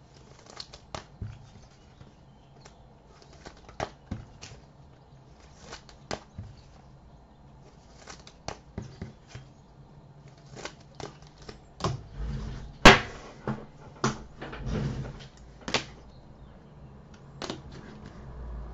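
Trading cards being handled and sorted by hand: scattered light clicks, taps and rustles, with a sharper knock about two-thirds of the way through and a few low thuds around it.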